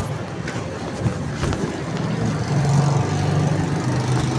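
Steady low rumble of a running motor vehicle, with noise spread across the range and a couple of faint clicks.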